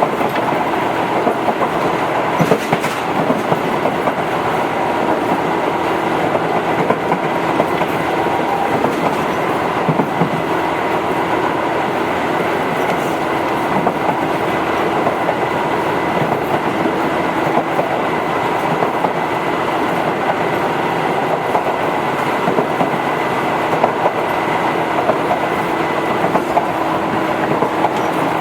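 Tobu 8000 series electric train running between stations: steady rumble of wheels on the rails, with a steady hum and now and then a rail-joint clack.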